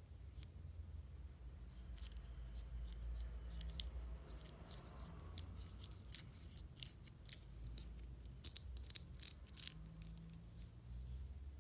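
Hands handling packaging: scattered small clicks and crinkles, with a quick run of sharper clicks about eight and a half seconds in, over a low hum.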